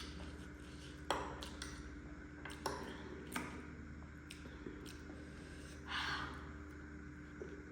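Eating sounds from a noodle meal: a few sharp clicks of utensils against a dish and a short soft hiss about six seconds in, over a faint steady hum.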